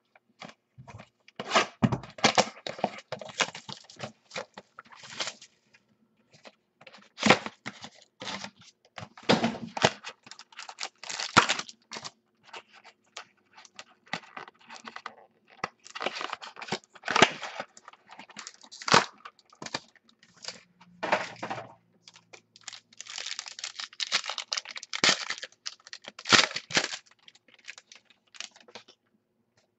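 A sealed Black Gold trading-card box being torn open by hand: irregular tearing, crinkling and rustling of its wrapping and cardboard, in uneven bursts.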